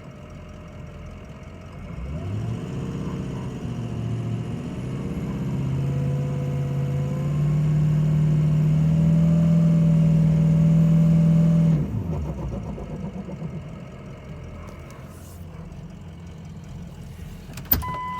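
2004 Ford F-250's 6.0L Power Stroke turbodiesel V8 revved from idle about two seconds in and held at raised speed, with a thin high whine climbing slowly alongside, then dropping back to idle about twelve seconds in. The sound is shown as the sign of a bad turbocharger.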